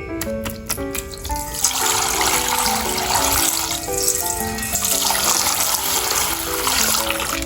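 Background music of short plucked notes, joined about one and a half seconds in by a steady rushing hiss like running water, which stops near the end.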